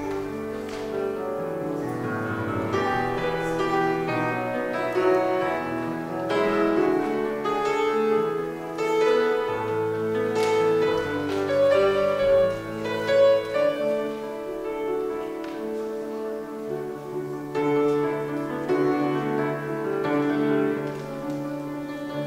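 Instrumental keyboard music in a slow classical style, playing held chords that change every second or two.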